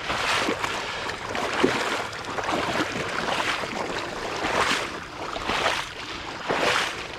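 A retriever dog swimming through duckweed-covered swamp water close by, with repeated splashing and sloshing surges about once a second.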